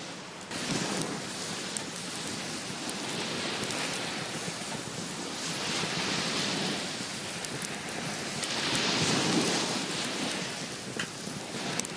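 Sea waves washing onto the shore: a rushing noise that swells and ebbs, with two louder surges in the second half.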